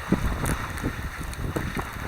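Wind noise on the microphone while skiing: a low buffeting rumble broken by irregular gusty thumps.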